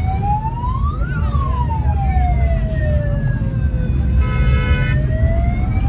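Wailing siren, slowly rising and falling in pitch, over a steady low rumble. A short steady horn-like tone sounds about four seconds in.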